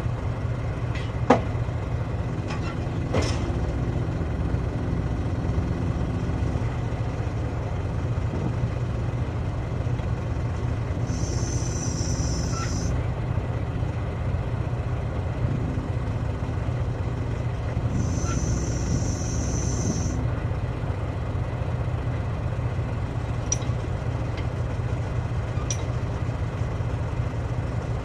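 An engine idling steadily throughout. There are a few sharp metal knocks in the first few seconds, and two hissing bursts of about two seconds each, a third and two-thirds of the way through, typical of compressed air during heavy-equipment tyre work.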